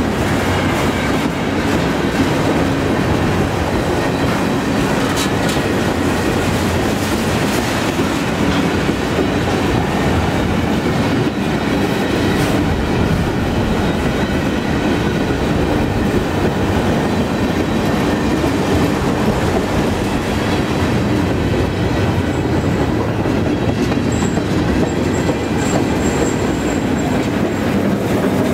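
A freight train of empty aluminum ingot flatcars rolling past close by: the steady rumble and clatter of steel wheels over the rail joints, with occasional sharp clanks.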